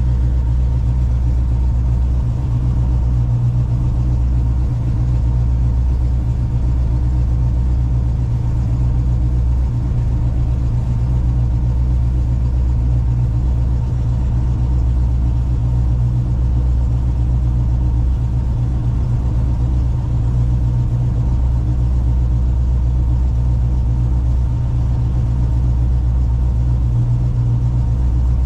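Ford 302 V8 of an SN95 Mustang idling steadily, with its new electric cooling fans running.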